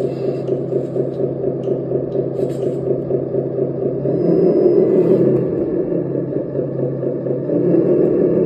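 A 1/14-scale remote-controlled Iveco 4×4 hydraulic dump truck running: a steady low rumble that grows louder about four seconds in and again near the end.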